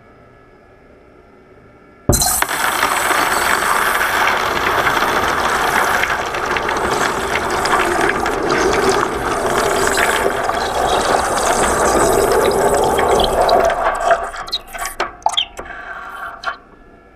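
Molten metal quenched in water: a loud hissing and bubbling starts suddenly about two seconds in, holds steady, then breaks up into separate sputters and crackles before stopping.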